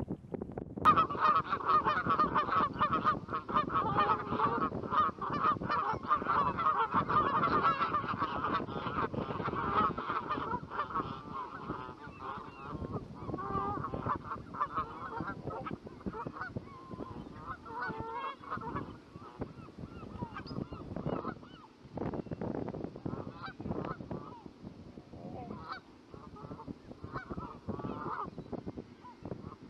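Flock of Canada geese honking: a dense chorus of many overlapping calls starts about a second in, then thins after about ten seconds to scattered separate honks.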